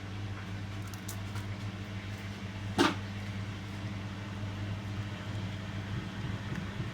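Washing machine running with a steady low hum, and one brief knock about three seconds in.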